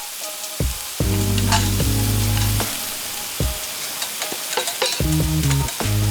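Food sizzling over an open wood fire: a steady hiss with scattered crackles and small clinks. Background music with low held notes comes in twice.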